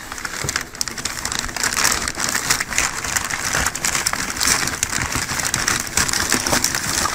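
Packaging rustling and crinkling as a boxed furnace inducer motor is pulled out of it: a dense, steady crackle of many small clicks.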